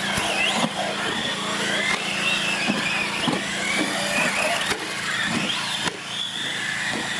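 Several electric R/C cars racing on a concrete floor, their motors whining and wavering up and down in pitch as the throttle changes. There are a few short knocks, and a steady low hum runs underneath.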